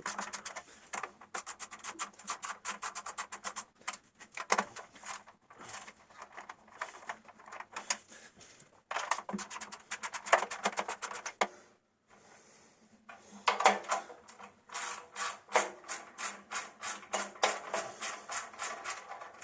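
Ratchet wrench clicking in rapid runs of sharp ticks, stopping and starting, as the screws holding the recoil starter housing are undone. There is a brief gap about twelve seconds in.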